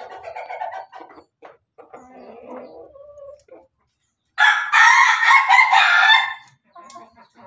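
A rooster crows once, loudly, for about two seconds, starting a little past halfway. Before it, chickens cluck softly.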